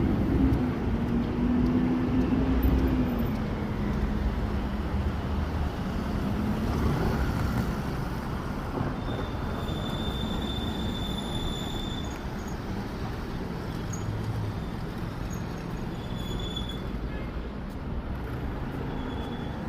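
Steady low rumble of a road vehicle running, with a pitched engine tone sliding slightly lower over the first few seconds and a faint thin high tone near the middle.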